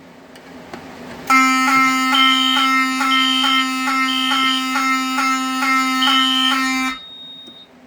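Fire alarm horn sounding: a steady buzzing tone with a regular pulsing pattern over it, starting abruptly about a second in and cutting off suddenly after about six seconds. This is the walk-test alarm set off by a manual pull station, with the notification circuit timed to six seconds.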